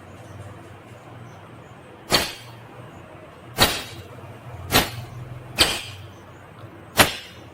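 Ringneck parrot giving five short, harsh, shrill screeches at irregular intervals, spaced about one to one and a half seconds apart, over a low steady hum.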